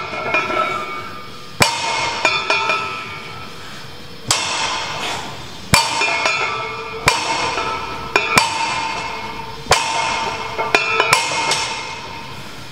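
Iron plates of a loaded barbell clanking on the floor with each rep, a strike roughly every second and a half, each one ringing briefly as it fades.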